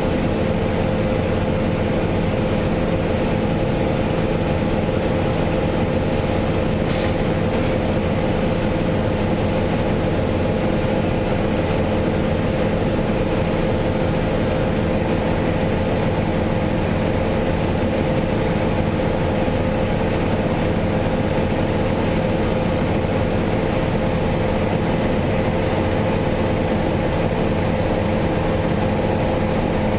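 Steady engine and road noise of a running car, heard from inside the cabin. One brief click about seven seconds in.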